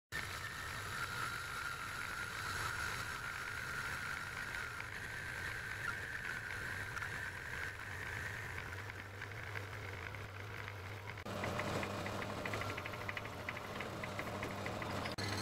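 Metal-working lathe running and cutting metal, with a steady whine from the cut over the hum of the motor. About eleven seconds in the sound changes abruptly to a rougher, fast rattle.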